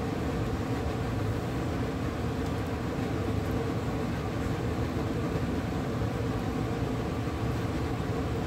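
Steady rumble and hiss of oil and sugar cooking in a pot over a gas burner on high heat, the sugar caramelizing and starting to bubble.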